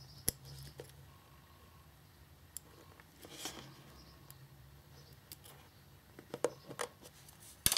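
Faint handling noises: a few small clicks and taps with a soft rustle as a male pin header is pushed through the holes of an LED strip circuit board, the sharpest click near the end.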